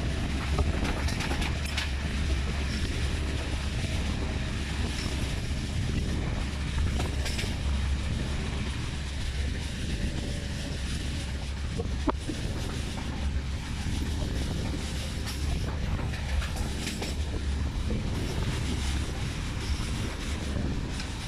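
A passenger train running at speed, heard from an open window: a steady rumble of wheels on rail with wind rushing over the microphone. A single sharp click comes about halfway through.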